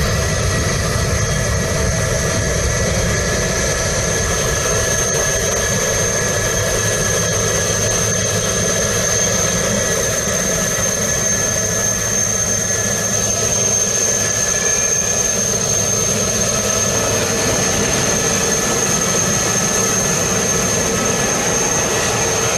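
Jet airliner engines running steadily: an even, unchanging noise with a constant high-pitched whine.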